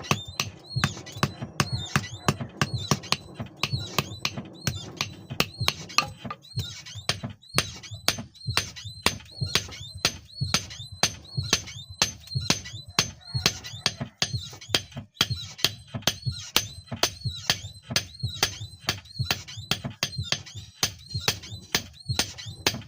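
Hand hammer striking steel on an anvil in an even rhythm of about two to three blows a second, each blow with a short metallic ring, over a low steady hum.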